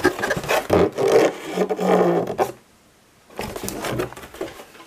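Cardboard and plastic packaging scraping and rustling as boxed models are handled and slid against a cardboard box, with a brief quiet gap a little past halfway.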